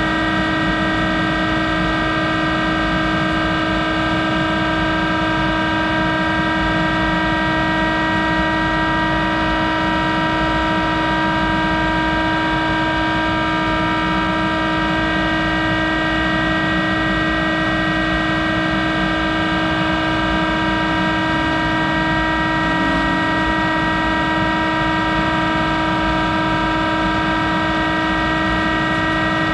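Monarch 10EE lathe running with its spindle turning, a steady whine of several tones over a low rumble that stays unchanged throughout.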